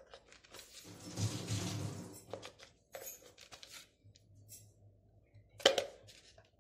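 Turmeric powder being added to raw chicken in a stainless steel bowl. There is a rustle lasting about a second, then a few light clicks and a sharper knock near the end, over a faint low hum.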